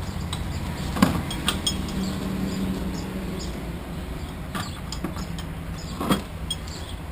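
Aluminium motorcycle side case being handled onto its rack: a handful of sharp metallic knocks and clinks, the loudest about a second in, over a steady low hum.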